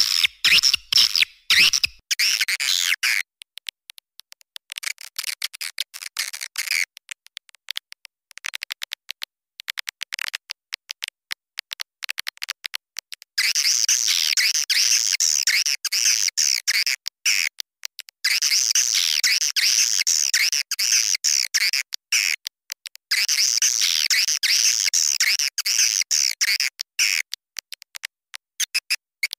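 A recorded swiftlet call lure: high, rapid twittering chirps of swiftlets, played as a calling sound to draw the birds into a nesting house. The chirps come in scattered bursts split by sudden silent gaps, then turn dense and near-continuous about halfway through, with brief breaks.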